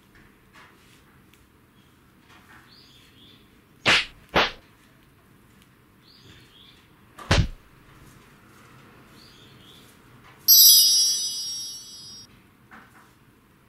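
Faint short chirps of Eurasian tree sparrows every few seconds, broken by three short, sharp sounds about four and seven seconds in. Near the end a bright ringing tone sounds once and fades over about two seconds.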